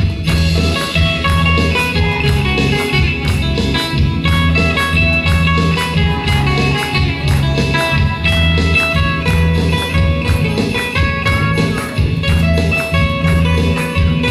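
Loud music with guitar and a steady, heavy bass beat, accompanying the dancers.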